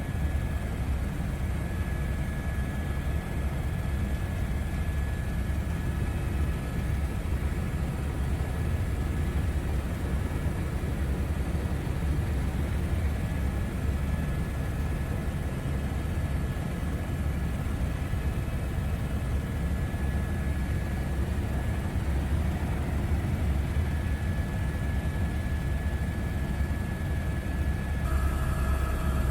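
Aircraft in flight, a steady low engine drone with a thin steady high tone over it; the tone shifts slightly near the end.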